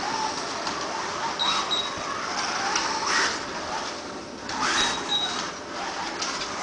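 Slot car's small electric motor whining as it laps the track, rising in pitch several times as it accelerates out of the bends.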